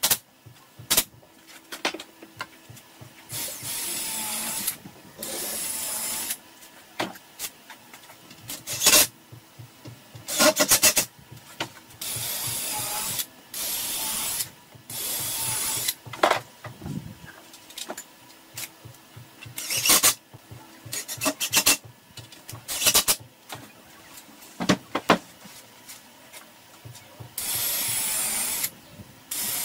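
A cordless drill runs in short bursts of a second or two as it bores and drives screws into the edges of plywood cabinet panels. Between the bursts come sharp clicks and knocks of the drill and boards being handled.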